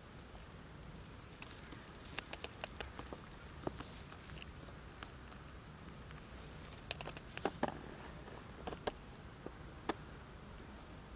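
Faint, irregular ticks and crackles, a few at a time, over a quiet steady background.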